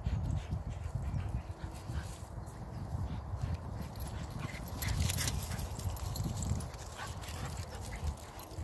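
Dogs moving about close by, with short dog sounds and light clicks, over a steady low rumble of wind on the microphone.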